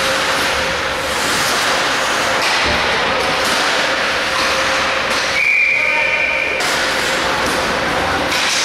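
Ice hockey practice in an echoing rink: a steady hiss of skates cutting on the ice, with occasional knocks of sticks and pucks. About five and a half seconds in, a whistle sounds one steady note for about a second.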